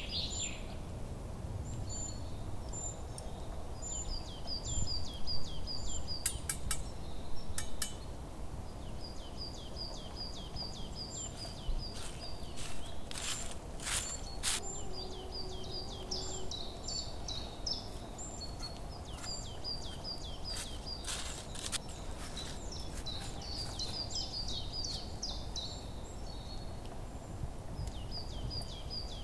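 Small songbirds calling repeatedly, with short, high, downward-sliding chirps in quick runs, over a low steady background rumble. A few sharp clicks or snaps come in the middle stretch.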